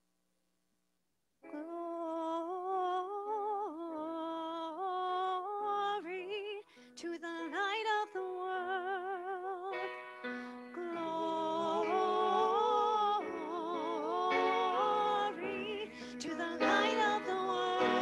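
Woman singing a slow ballad melody with wide vibrato, accompanied by piano. The sound is cut out completely for about the first second and a half, then the song comes in, growing fuller and louder near the end.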